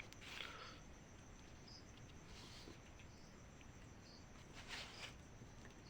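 Near silence: faint room tone, with a few faint, short, high-pitched chirps and soft hissy sounds now and then.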